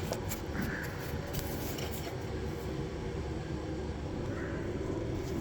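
Steady low hum in the background, with a few light clicks and taps in the first two seconds as parts are handled at the front brake caliper.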